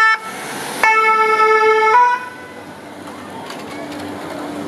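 Fire-brigade ambulance's siren horn sounding a short blast, then one longer blast of about a second that ends on a brief lower note, after which only quieter street traffic noise remains.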